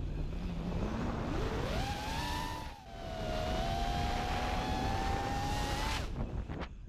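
Brushless motors of an FPV racing quadcopter (Emax 2306 2400KV with APC 5x4x3 three-blade props) whining under throttle, with wind noise. The whine climbs steeply in pitch over the first two seconds and holds high, dips briefly, drops out for most of a second near the end and climbs again.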